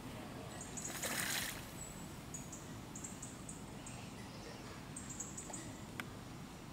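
Female mallard bathing, splashing water with one burst of splashing about a second in, with short high bird chirps repeating behind it.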